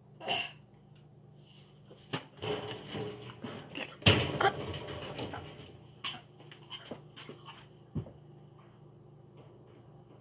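A burst of knocks, bumps and rustling close to the microphone as someone moves about beside it. It is densest between about two and five seconds in, the loudest bump comes about four seconds in, and there is one more sharp knock near the end, over a faint steady hum.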